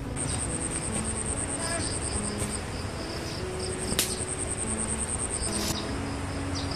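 Insects calling: a high, fast-pulsing trill that breaks off for about a second mid-way and then resumes, over a slower repeated chirp of a second insect. There is a single sharp click about four seconds in.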